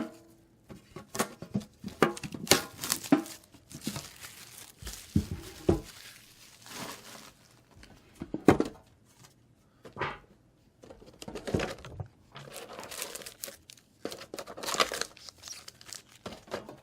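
Trading-card packaging crinkling and tearing as it is opened by hand, in irregular bursts of crackling.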